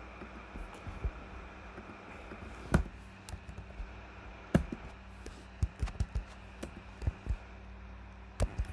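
Keystrokes on a computer keyboard: irregular, short clicks of uneven loudness, with two sharper ones near the middle, over a steady low hum.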